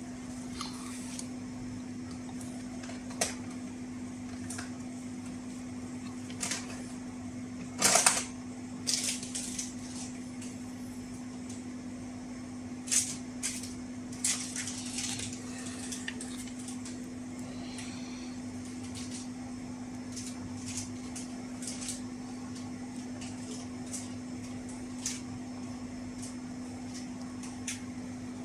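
Small clicks and taps of hand tools against a circuit board while wires are being soldered on, scattered irregularly and loudest about eight seconds in, over a steady low hum.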